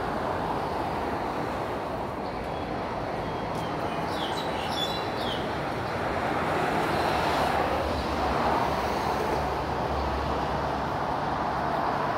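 Steady road traffic rush from a multi-lane expressway, a low rumble rising about eight seconds in as a heavier vehicle passes.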